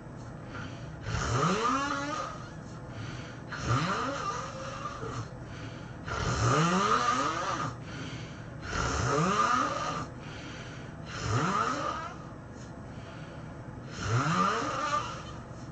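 A person snoring heavily in a steady rhythm: six loud snores about two and a half seconds apart, each rising in pitch as it starts.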